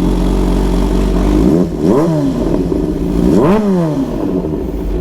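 Kawasaki Z H2's supercharged inline-four, fitted with an Orion aftermarket exhaust, starting up and idling. It is blipped twice, about 2 and 3.5 seconds in, each rev rising and dropping back to idle.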